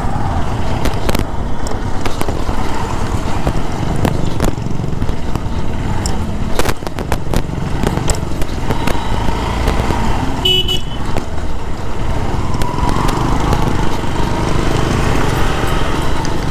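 Honda SP 125 motorcycle's single-cylinder engine running on the move over a broken road, with frequent knocks and rattles from the bumps. A short horn toot sounds about ten seconds in.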